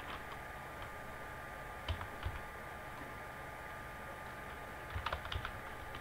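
Computer keyboard keystrokes as a search term is typed: a few scattered key taps about two seconds in, then a quick run of taps about five seconds in, over a faint steady hum.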